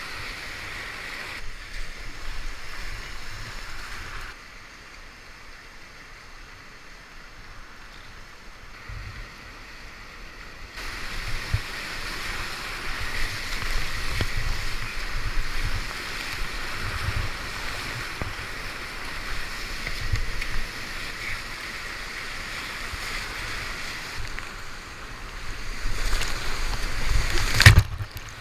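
Whitewater rapids on a river rushing around the kayak, with low buffeting of wind on the microphone. The water grows louder about eleven seconds in. Near the end a single sharp, loud hit stands out.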